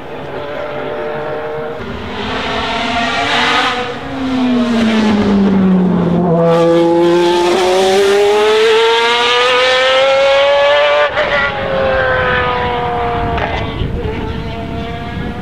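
The V12 engine of a 1999 BMW V12 LMR Le Mans prototype. Its note drops as the driver lifts off about four seconds in, then climbs steadily under hard acceleration as the car comes past, loudest in the middle. An upshift cuts the note sharply about eleven seconds in, and the engine pulls on more quietly as the car moves away.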